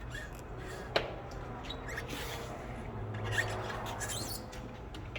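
Faint handling noises: light rubbing and scattered small ticks, with one sharp click about a second in, over a steady low hum.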